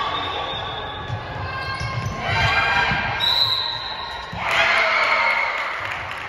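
A volleyball rally in a gymnasium: the ball knocked back and forth by the players, with voices around the court. About four and a half seconds in, spectators break into cheering and shouting as the point is won.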